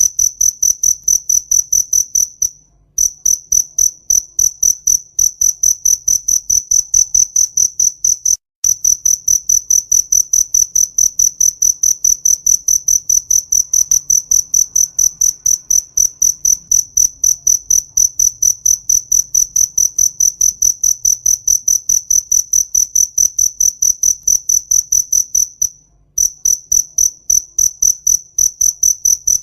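Cricket chirping: a high, even, pulsed trill repeated at about three to four chirps a second, breaking off briefly three times.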